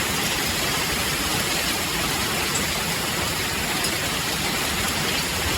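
A hailstorm pelting a vehicle: a steady, dense hiss of falling hail and rain on the car, with no letup.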